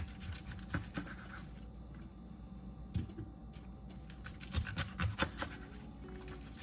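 Kitchen prep sounds: scattered light knocks, clicks and scrapes of utensils and ingredients being handled, over a low steady hum, with a cluster of knocks around five seconds in.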